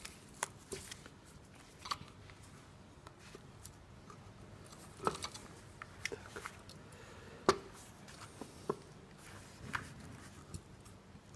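Screwdriver tip clicking and scraping on the metal rim of a propeller shaft CV joint housing while the cover is pried up: scattered light metal clicks, the sharpest about seven and a half seconds in.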